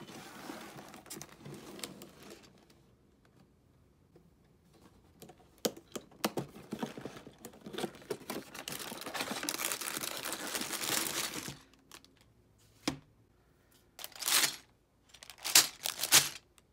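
Cardboard LEGO box being handled and opened by hand: irregular rustling and scraping of the cardboard flaps with scattered sharp clicks, a long stretch of dense rustling, then short crinkles of sealed plastic bags of bricks near the end.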